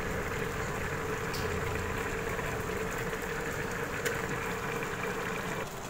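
Electric multicooker humming steadily as it heats the rice and liquid in its pot, the hum cutting off shortly before the end, with a couple of faint light clicks.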